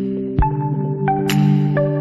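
Background music: sustained ambient chords with a soft beat, a low drum hit about half a second in and a cymbal-like crash near the middle.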